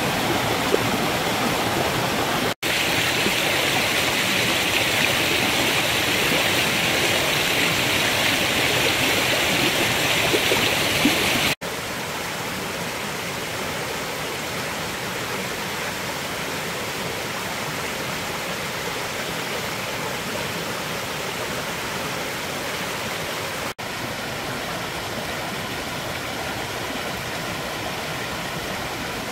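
Mountain stream rushing and splashing over boulders, running high the day after a rain shower. The rush is louder and brighter for the first dozen seconds, then softer. There are brief gaps about two and a half, eleven and a half and twenty-four seconds in.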